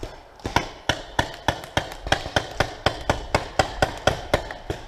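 Running footsteps on grass and dry leaves, an even beat of about four strides a second.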